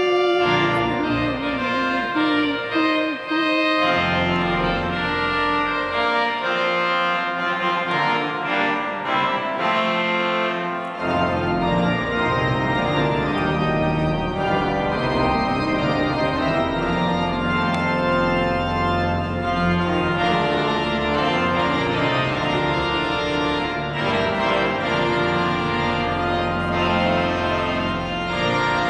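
Exeter Cathedral's pipe organ playing many notes at once in sustained chords. Deep pedal bass comes in about four seconds in, drops away, and returns strongly about eleven seconds in.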